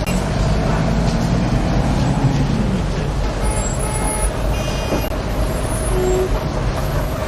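Dense city road traffic: a steady rumble of engines and tyres, with one heavy vehicle's engine prominent for the first few seconds and a brief high squeal about halfway through.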